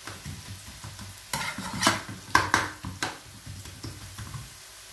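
Finely chopped onions frying in a pan, stirred with a metal spoon: irregular scraping strokes against the pan over a faint sizzle, loudest about one and a half to two and a half seconds in. The onions are nearly cooked through.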